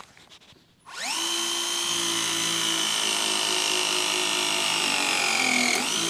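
Battery-powered pipe press tool running its crimp cycle on a copper gas fitting: the motor starts about a second in with a quick rising whine, runs steady, and sags in pitch near the end. This is the press jaws crimping the fitting onto its internal O-ring to make a solid joint.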